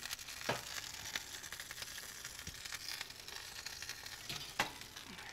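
Roasting pan of stuffed whole redfish sizzling in a hot oven, with a few light knocks and clinks as the pan is handled.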